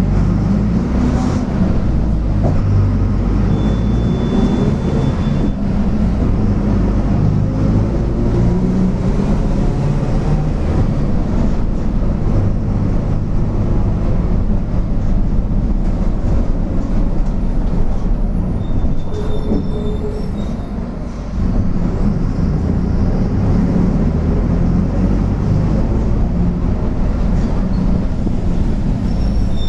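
Mercedes-Benz OF-1722M city bus heard from on board, its diesel engine pulling steadily with the driveshaft growling underneath. About two-thirds of the way through, the engine eases off briefly, then pulls again.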